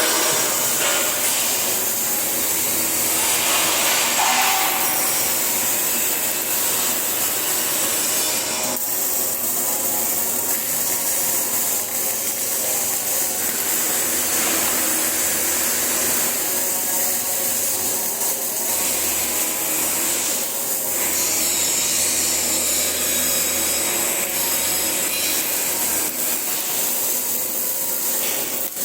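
MIG welding arc crackling and hissing steadily.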